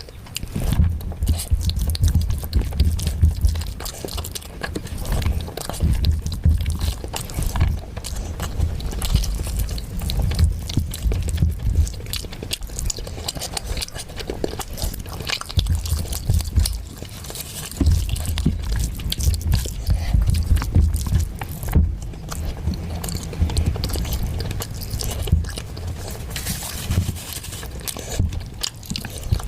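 Close-miked eating: a person chewing and biting mouthfuls of chicken curry with rice, with irregular wet mouth clicks throughout.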